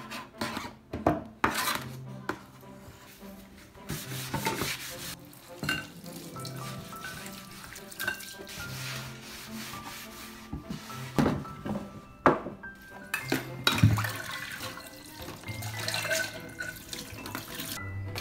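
Background music over kitchen clean-up sounds: a knife scraping fruit peel off a wooden cutting board, water running at a steel sink in stretches, and a number of sharp knocks and clinks as the board and utensils are handled and put into a dish rack.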